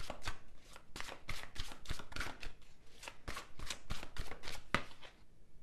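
A deck of tarot cards being shuffled by hand: a quick run of soft clicks and rustles that stops about five seconds in.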